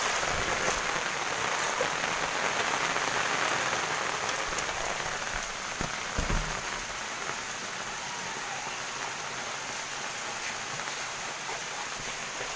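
Steady rain falling on wet ground and standing floodwater, a continuous hiss that grows quieter about halfway through, with a single short knock just before.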